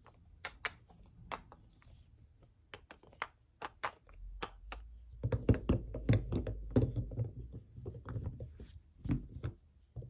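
Hard bars of Palmolive soap clicking and tapping against one another in the hands. About five seconds in, this gives way to a denser run of knocking and rubbing as the bars are shuffled through a pile of soap.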